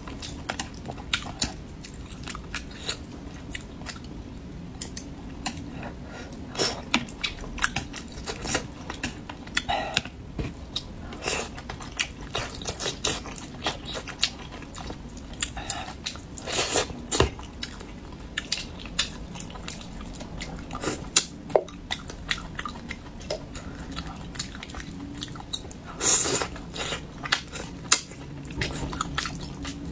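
Close-miked eating: a person biting and chewing pieces of spicy braised carp, with irregular wet mouth clicks and smacks.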